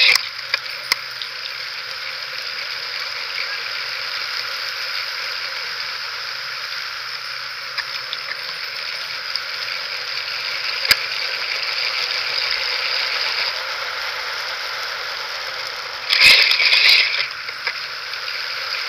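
A bicycle rolls along a paved path with a steady hiss of tyre and rolling noise, broken by a few light clicks and rattles. About sixteen seconds in comes a short, much louder burst of noise lasting about a second.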